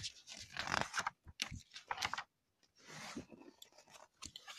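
Paper rustling and rubbing as a picture book is handled and its pages turned, with a string of short scrapes and clicks from the book and phone being moved, and a longer rustle about three seconds in.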